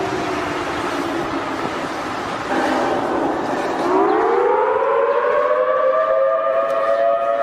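Civil defense warning siren wailing. Its pitch sinks low about three seconds in, then climbs again from about four seconds in and holds at its high pitch, louder.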